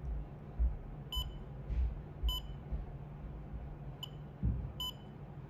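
YONKER fingertip pulse oximeter giving four short high beeps, roughly once a second, the pulse beeps of a reading in progress. Dull low thumps of handling come between the beeps.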